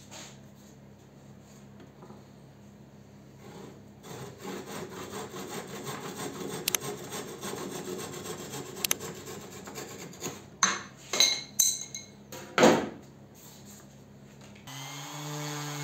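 Thin-bladed hand saw cutting a wooden dowel flush with a pine board, rasping back and forth for several seconds. This is followed by a few sharp knocks, and a different steady pitched sound starts near the end.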